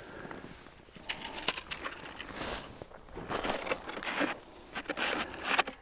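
Irregular rustling and crunching of snow and ice as someone kneels and works by hand at an ice-fishing hole.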